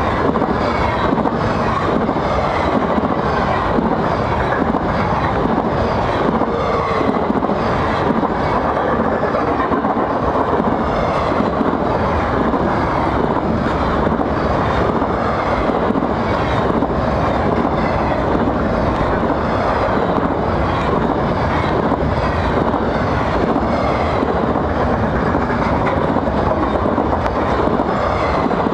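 Intermodal freight cars loaded with highway trailers and containers passing at speed over a level crossing: a loud, steady rush of steel wheels on rail.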